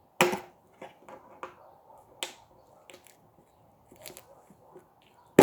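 Hard plastic tool case being pried at, its latches clicking and snapping several times, with a loud snap near the end as the case comes open.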